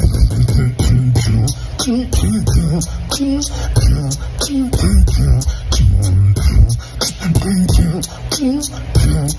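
Human beatboxing: a steady, tight hip-hop beat of mouth-made kick drum, snare and hi-hat sounds, with short pitched vocal sounds that bend up and down woven in about once a second.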